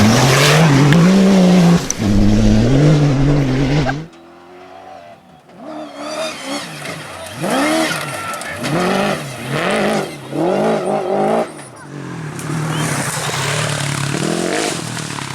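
Rally vehicle engines at speed. A loud engine climbs in pitch under full throttle, then after a sudden cut at about four seconds another engine revs up in a run of short rising sweeps, one gear after another, before settling into a steady run.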